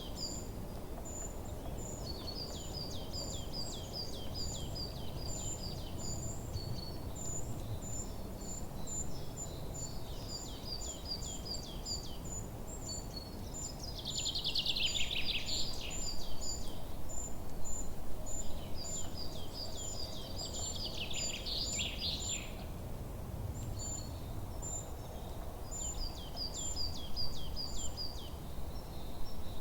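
Forest bird chorus: a steady run of short, high chirps and repeated falling song notes from several songbirds, with two louder falling songs near the middle, over a low, even background rumble.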